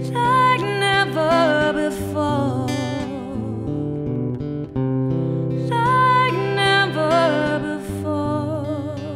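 Acoustic guitar with a woman's voice singing a slow ballad. The voice holds long notes with vibrato in two phrases, one about a second in and one around six seconds.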